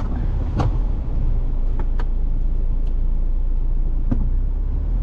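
Ford Bronco's engine and tires running at a low, steady crawl over a muddy, rutted trail, heard from inside the cabin, with a few sharp knocks from the vehicle jolting over rough ground.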